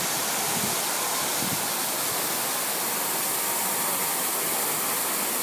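Fountain splashing: a steady, even rush of falling water.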